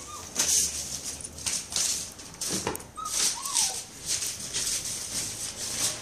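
Whippet puppy giving a few short, high whimpering squeaks, one near the start and two about halfway through. Scratchy rustling sounds come throughout as it paws at the sofa cover.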